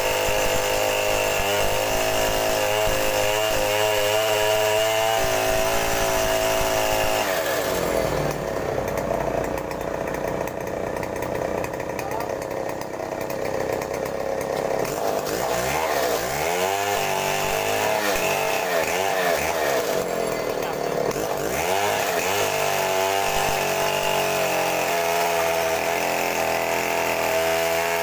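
Two-stroke petrol chainsaw ripping lengthwise along a mahogany beam at full throttle. About seven seconds in, the engine speed drops and its pitch swings up and down for a stretch, then climbs back to a steady high whine around 22 seconds in.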